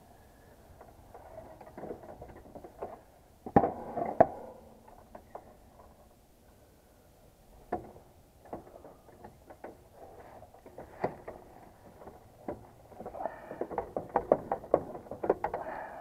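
Irregular clicks, taps and rustling of hand tools and wires being worked in a heat pump's control panel. There is a burst of sharp clicks about three and a half seconds in and a busier run of them near the end.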